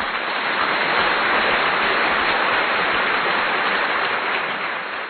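A steady, even hiss of noise like rain or a spray, dull and without any high end, fading out at the very end.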